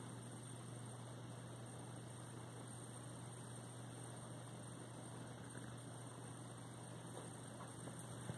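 Faint steady low hum with a light hiss: room tone, with one small click near the end.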